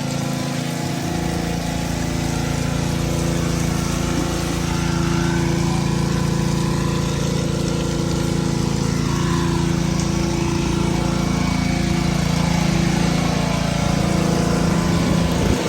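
A motor running steadily at a constant speed, its hum unchanging, then cut off abruptly at the end.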